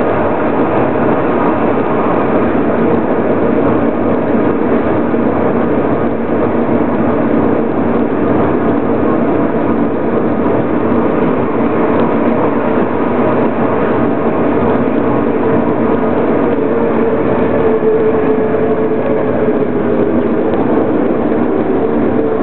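Electric rack railcar of the Pilatus Railway running steadily on the steep cog track, its motors and cog gearing making a continuous loud running noise with a steady hum, heard from inside the car.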